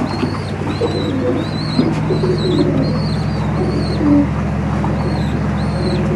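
Domestic high-flyer pigeons cooing in a loft, in low, wavering calls. A short high chirp repeats about twice a second, over a steady low hum.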